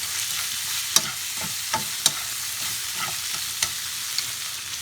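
Shrimp sizzling in a hot pan with garlic and oyster sauce as they are stirred, a utensil clicking against the pan a few times.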